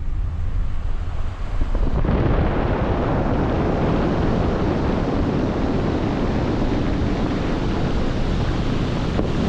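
Low rumble of a car on the road, then from about two seconds in the loud, steady rush of a waterfall.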